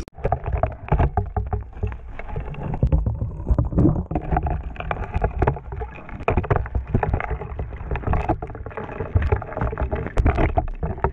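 Muffled underwater-camera sound beneath the ice: water rumbling and swishing with irregular knocks and clicks as a hooked pike moves on the line close to the lens.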